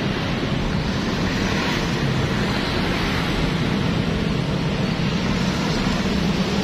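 Steady rumble of passing road traffic, an even noise with no distinct events.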